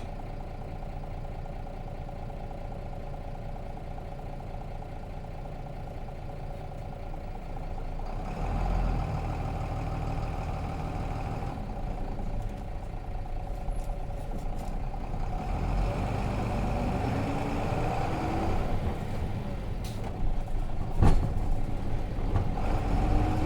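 Nissan Diesel FE6 six-cylinder diesel of a 2002 Nissan Diesel RM bus idling steadily, then pulling away about eight seconds in. Engine speed rises twice as it accelerates through the manual gears, with a couple of sharp clicks in between.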